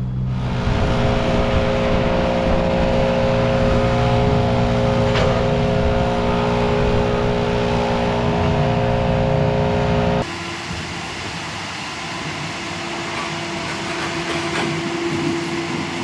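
Large engine running steadily at speed, probably heavy equipment. About ten seconds in, the sound cuts off abruptly to a quieter engine hum.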